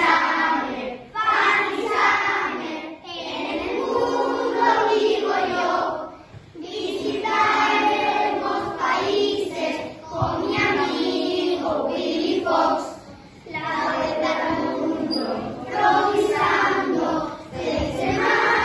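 A group of children singing a song together in unison, in phrases of a few seconds with short breaths between them. It is the summer camp's anthem.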